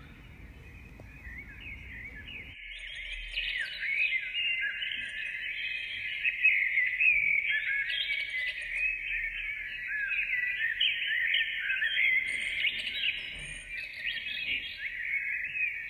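A dense chorus of small birds chirping and twittering at once, many quick high chirps overlapping without a break. About two and a half seconds in, the low background rumble drops out suddenly and the chirping grows louder.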